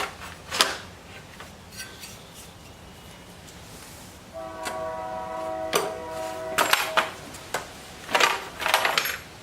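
Knocks and clatter of a motorcycle's rear body parts being worked loose and lifted off by hand. Partway through, a distant horn sounds one held chord of several tones for about two and a half seconds.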